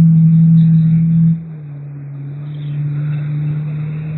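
Jet ski engine running at speed, a steady drone that drops sharply in loudness and slightly in pitch about a second and a half in, then runs on lower.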